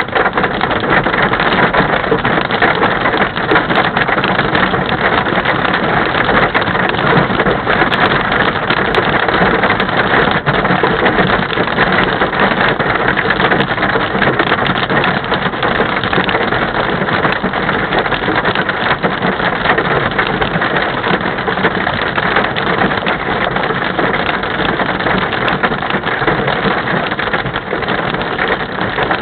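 Hail and heavy rain pelting a Honda Ridgeline pickup's roof and windshield, heard from inside the cab: a dense, continuous patter of small impacts that holds steady throughout.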